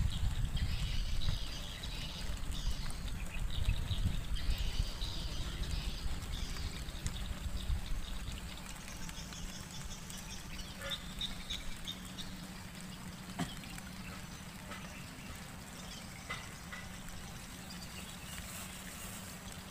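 Swamp ambience: a low wind rumble on the microphone that eases off after about eight seconds, with faint, scattered chirping calls of small wildlife.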